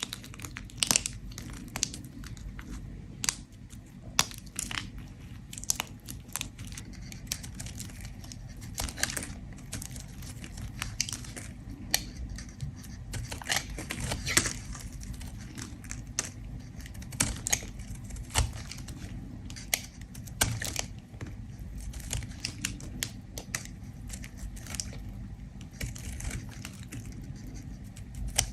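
A bar of soap being scraped, the soap crackling and crumbling in quick, irregular crisp clicks over a steady low hum.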